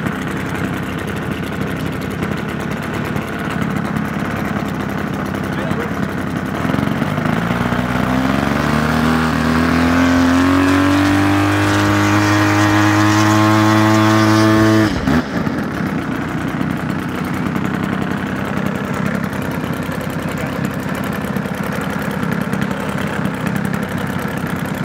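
Desert Aircraft DA-120 two-stroke gas engine on a large RC aerobatic plane, running with its propeller at a steady idle. About seven seconds in the throttle is opened, and the pitch rises over a few seconds and holds high. About fifteen seconds in the throttle is cut sharply back to idle.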